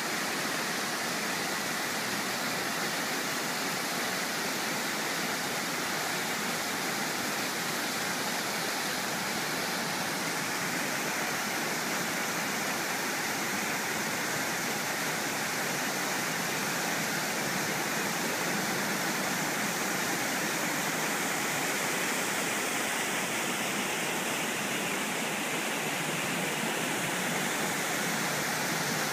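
Large plaza fountain's ring of vertical water jets splashing down into its basin: a steady, unbroken rush of falling water.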